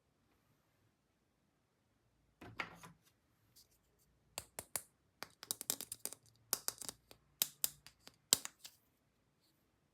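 Small plastic toy parts being handled: a brief rustle, then a quick run of sharp clicks and taps, like pieces being snapped, set down and fitted together.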